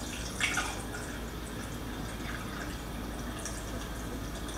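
Water being poured through a funnel into a half-gallon glass jar, trickling and splashing unevenly, with a brief louder splash about half a second in.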